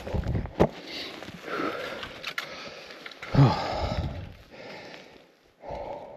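A man breathing hard and heavily, out of breath from the effort of snowshoeing through deep snow, with a short voiced grunt on one exhale about three and a half seconds in.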